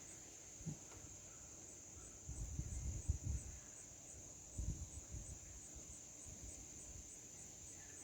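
Low rubbing and bumping of a phone being handled, twice, over a steady high-pitched chirring of crickets.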